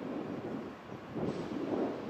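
Wind buffeting the microphone: a dull, uneven rushing that dips briefly just before halfway and swells again in the second half.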